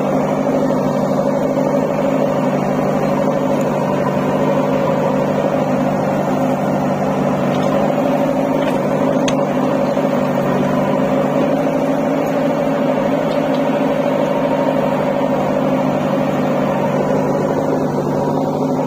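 JCB 3DX backhoe loader's diesel engine running at a steady speed while the backhoe works. There is a single faint clank about halfway through.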